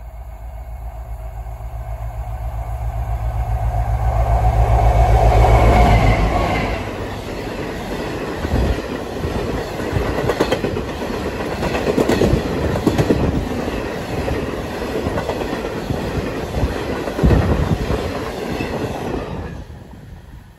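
Class 60 diesel locomotive's eight-cylinder Mirrlees engine running under power with a low throb, growing louder as it approaches and passes about five seconds in. Then a long freight train of hooded wagons rolls by, with steady wheel rumble and occasional knocks over the rails, ending abruptly as the last wagon passes near the end.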